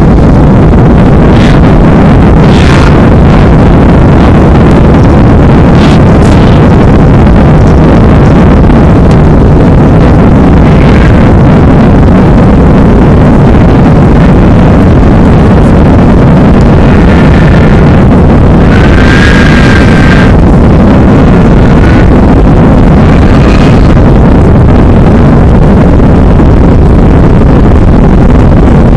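Airbus A319 jet engines at takeoff power with runway rumble during the takeoff roll, heard from inside the cabin over the wing: a steady loud noise, heavily distorted by an overloaded microphone. A short higher whine comes in briefly a little past two-thirds of the way.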